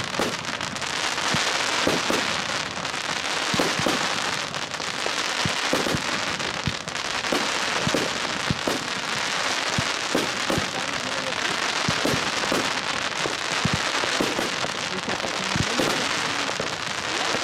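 Fireworks going off: ground fountains hiss and crackle without a break while firework cakes fire shot after shot, with sharp reports and bursts in quick, irregular succession.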